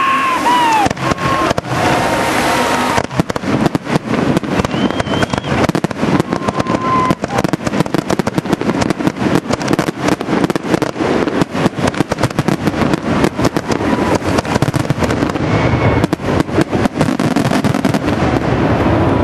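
Aerial fireworks shells bursting in a rapid barrage, a dense run of bangs and crackles that thins out near the end, with a few whistles over it.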